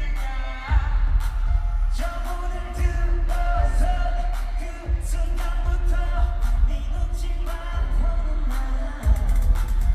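Live K-pop concert music: a boy band singing over a heavy bass and drum beat, heard through the arena sound system from the audience.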